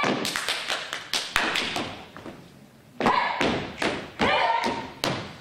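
Step dancers stomping and clapping in unison, a quick run of sharp thuds and slaps. About halfway through the hits stop for a second, then start again with short shouts among them.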